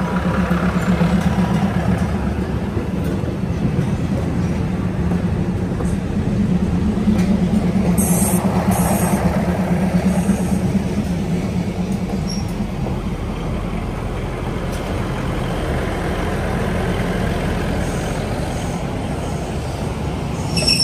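State Railway of Thailand diesel railcar passing slowly at close range as it pulls into the station: a steady low engine drone with the wheels running over the rails, and two short hisses about eight seconds in.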